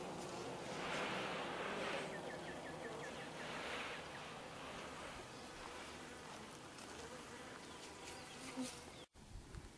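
Honeybees buzzing at an open wooden hive, a steady wavering drone that breaks off abruptly near the end.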